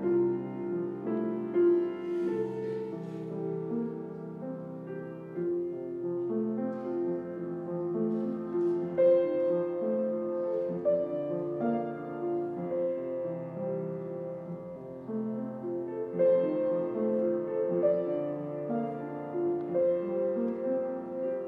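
Piano playing a slow piece, held chords under a simple melody line.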